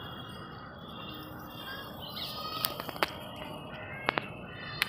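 Birds calling and chirping in the background over an outdoor hum, with a few sharp clicks in the second half.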